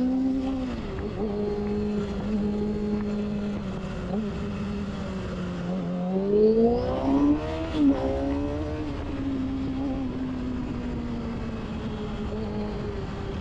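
Yamaha YZF-R6 inline-four engine running at steady revs while riding. About six seconds in, the revs climb quickly, with a few loud surges near the top, then ease back to a steady note. Wind rushes over the microphone throughout.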